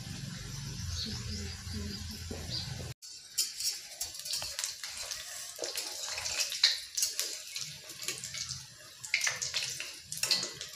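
Dough biscuits deep-frying in hot oil, sizzling with irregular crackles as they turn golden brown. The sound breaks off sharply about three seconds in and resumes with sharper crackling.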